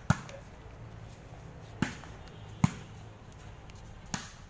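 A ball struck four times during a rally, each a sharp smack: right at the start, just under two seconds in, again about a second later, and near the end.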